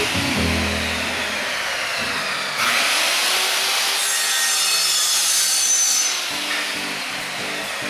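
A saw cutting through material in long continuous passes, louder from about two and a half seconds in until about six seconds in.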